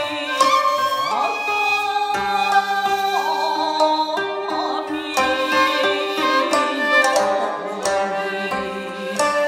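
Japanese jiuta chamber music: plucked koto and sangen (jiuta shamisen) notes over a held, wavering shakuhachi bamboo flute line. The plucks fall irregularly and closely throughout.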